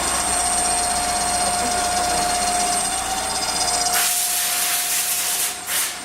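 A workshop machine running with a steady high whine. About four seconds in, a loud hiss starts and stays on, with two short bursts of hiss near the end.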